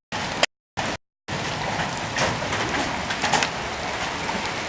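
Heavy summer-storm rain with large hailstones pelting down, a steady hiss punctuated by a few sharp hail impacts. The sound cuts out briefly three times in the first second and a half.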